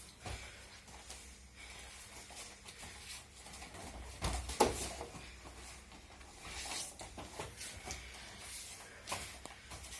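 Scattered soft thumps, shuffles and rustles of people practising aikido on a mat, with one louder thump about four and a half seconds in.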